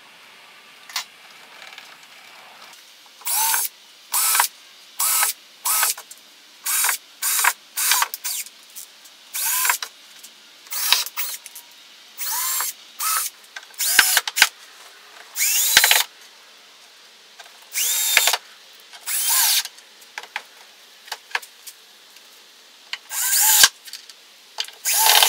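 Cordless drill driving screws through iron pipe floor flanges into a wooden shelf board, in about twenty short runs, each motor whine rising as it spins up and falling as it stops.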